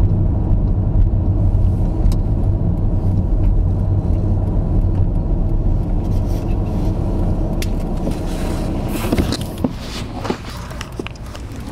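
Steady low rumble of a moving vehicle. In the last few seconds it fades, with clicks and rubbing noises from the camera being handled.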